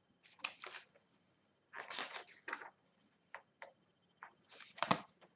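A paperback picture book's pages being turned and handled: a few soft paper rustles with light taps in between.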